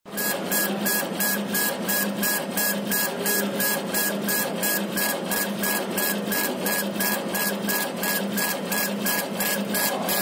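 Laser engraver raster-engraving acrylic: the laser head is driven rapidly back and forth, about three passes a second, in a steady rhythmic machine whir over a continuous hiss.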